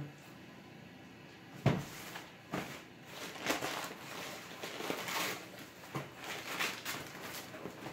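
Tissue paper crinkling and rustling in irregular bursts as it is pulled back from around the sneakers in a cardboard shoebox. It is preceded, about a second and a half in, by a single sharp knock of handling.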